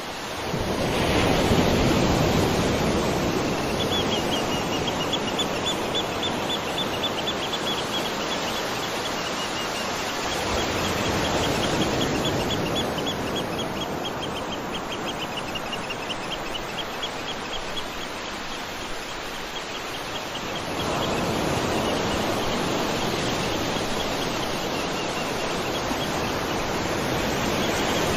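Waterfall rushing in a steady, even roar of falling water, growing louder about a second in and again about 21 seconds in. Through the middle stretch a bird gives a long run of rapid, high repeated chirps above the water.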